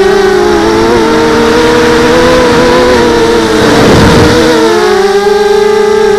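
Small quadcopter's four brushless motors and 5-inch propellers whining, several close pitches drifting up and down as the motor speeds change. About four seconds in, a rushing noise briefly swells over them.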